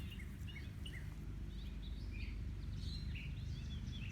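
Birds chirping outdoors in short, scattered calls over a steady low rumble.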